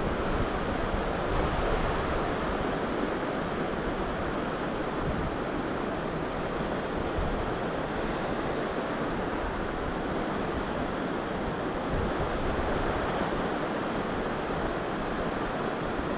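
Steady rush of a rocky trout river's current flowing over and around boulders.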